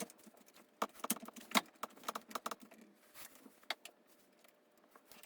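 Scattered light metallic clicks and clinks of small bolts and parts being handled, most of them in the first half.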